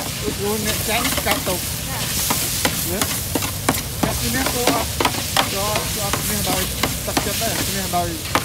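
Food sizzling and frying in a hot pan, with a metal utensil clinking and scraping against the pan as the food is stirred.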